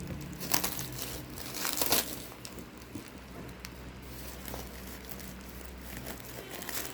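Parcel packaging crinkling and rustling as it is handled and unwrapped, with louder crackles about half a second and two seconds in.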